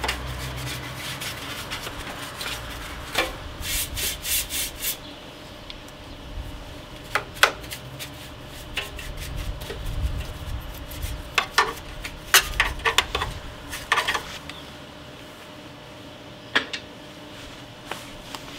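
A small brush scrubbing dust out of the inside of a PC case, bristles rubbing on the metal and plastic parts in short, irregular scraping strokes. A quick run of several strokes comes about four seconds in.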